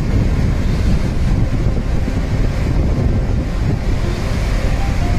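Floodwater pouring through the open spillway gates of a dam, a steady loud rush that is heaviest in the low end, with wind buffeting the microphone.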